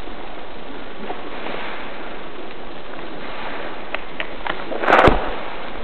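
Steady rushing noise from a body-worn camera's microphone as the wearer moves. A few faint clicks come a little before four and a half seconds, and one sharp, loud bang comes about five seconds in.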